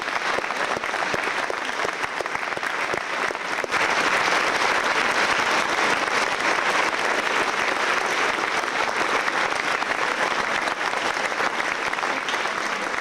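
Audience applauding: steady, dense clapping that grows louder about four seconds in.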